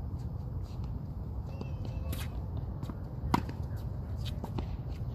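A tennis ball struck on a hard court: one sharp pock a little over three seconds in, with a few fainter ticks, over a steady low rumble.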